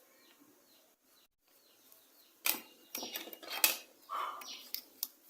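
A few sharp plastic clicks and snaps, close together, from the Nokia 1280's housing being handled and opened after its screws are out.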